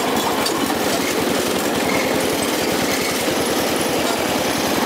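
White riding lawn mower's small engine running steadily with a fast, even putter as the mower drives along, its blades disengaged.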